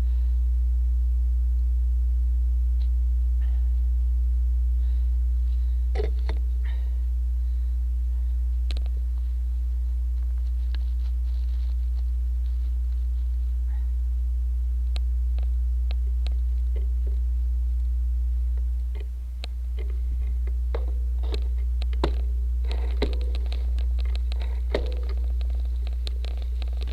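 Motobecane Fantom Cross cyclocross bike rolling over a grassy dirt trail, heard through a rear-facing bike-mounted camera: a steady low rumble with scattered clicks and rattles, busier in the last few seconds.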